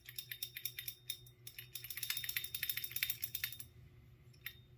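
A quick run of light, sharp clicks and taps, about ten a second for three and a half seconds, then a single click near the end.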